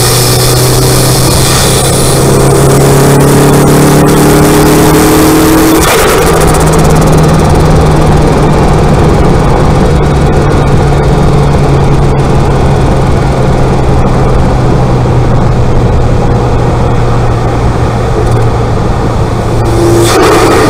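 Turbocharged Mk1 Mazda MX-5 four-cylinder engine running, heard close up in the engine bay. A high whine from the TD04 turbo climbs in the first two seconds, and the engine note shifts about six seconds in and again near the end.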